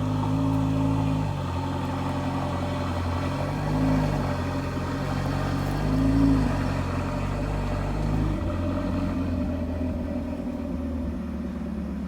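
A car engine running steadily with road noise, its pitch rising and falling briefly a few times as it speeds up and eases off.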